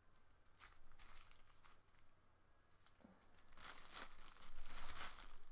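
Plastic protective film on a diamond painting canvas crinkling and rustling as it is handled. A few light clicks come early, and the crinkling is loudest from about three and a half to five seconds in.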